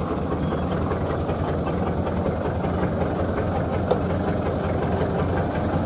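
Kubota DC-70 combine harvester's diesel engine running steadily under load while harvesting rice, a constant low hum with a mechanical rush over it.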